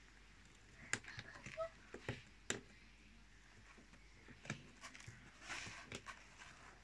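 Faint, scattered knocks, clicks and rattles from a kitten moving about and playing inside a wire cage. A few sharp clicks come in the first three seconds, and another cluster comes about five to six seconds in.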